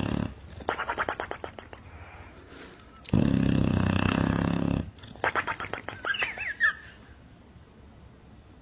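Loud snoring: a long buzzing snore about three seconds in, with a quick fluttering rattle after each snore. The second rattle carries a few short whistles.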